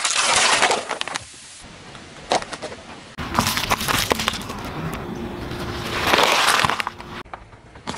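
Car tyre crushing plastic cups and a bottle of soft drink: a loud burst of cracking plastic and spraying liquid in the first second. After a cut, the tyre rolls onto a head of romaine lettuce, crunching and crackling, loudest about six seconds in.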